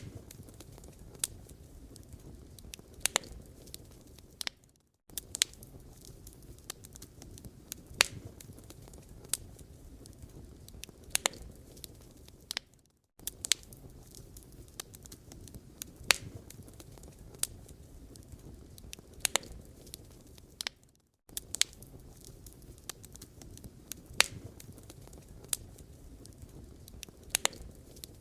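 Wood fire burning in a fireplace, crackling with irregular sharp pops over a low steady hiss and rumble. The sound drops out briefly about every eight seconds.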